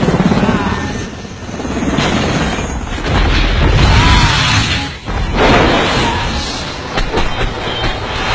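Film battle soundtrack: heavy booms and rumbling explosions swelling and fading several times over a music score, with a few sharp cracks near the end.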